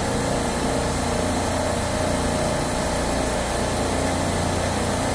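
Steady machine hum of a supermarket refrigeration compressor rack running, even and unbroken.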